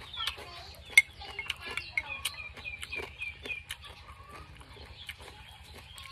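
Chickens clucking, with a quick run of short high clucks from about two seconds in. Sharp clicks and taps come through, the loudest about a second in.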